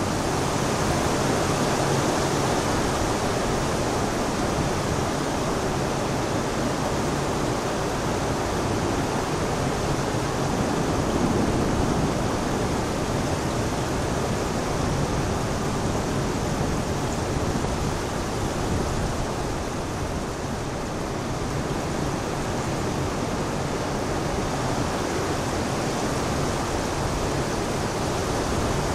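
Heavy thunderstorm downpour: a steady, dense rush of rain falling on paved ground, easing slightly about twenty seconds in.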